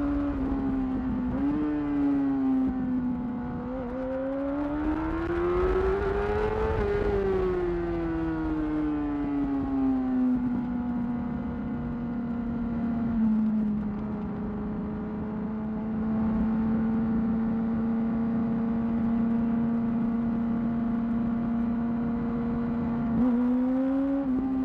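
2008 Yamaha R6 inline-four engine through a Termignoni exhaust, under way. The engine note climbs for about three seconds as it accelerates, then drops back as the throttle eases and holds a steady cruising note, with a short rise and fall near the end.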